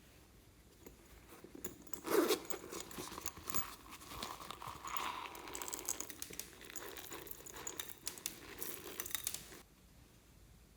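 Slime being worked and mixed by hand, giving an irregular crackling and crinkling. It starts about two seconds in with a sharp crackle and stops near the end.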